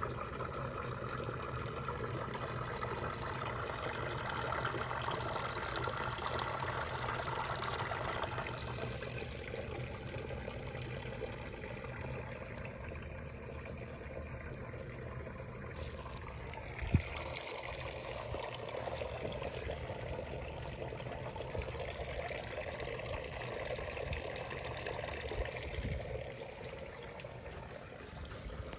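Water trickling and pouring steadily, with one sharp knock a little past halfway.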